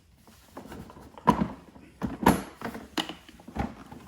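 Parts of a pressure washer's bucket holder knocking and clicking as they are fitted into place by hand: a series of sharp knocks, the loudest about a second and two seconds in.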